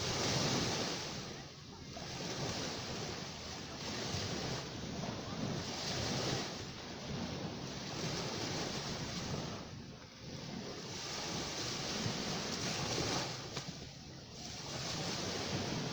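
Ocean surf breaking and washing on a beach: a continuous rush of water that swells and ebbs, with brief lulls between waves a few times.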